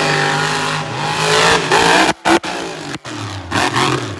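Monster truck engine revving hard, its pitch rising and falling, with sudden brief cut-outs a little after two seconds in and again at about three seconds as the throttle snaps shut.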